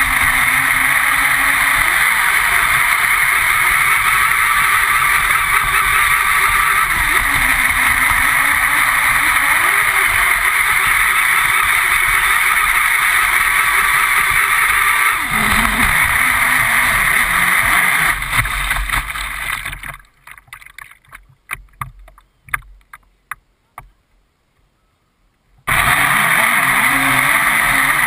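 Radio-controlled speedboat heard from its own deck: a steady rush of water with the motor's tone rising and falling under the throttle. Near the middle the sound dies away to near silence with a few small splashes for about five seconds, then cuts back in suddenly at full level as the boat runs again.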